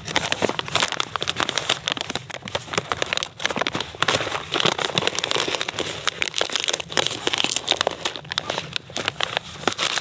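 Foil freeze-dried meal pouch crinkling and crackling steadily as it is handled and pulled open.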